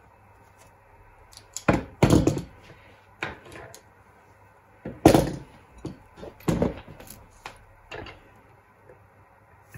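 Hand tools such as pliers and a soldering iron knocking and being set down on a wooden chopping board: a string of about eight sharp thunks, loudest about two seconds and five seconds in.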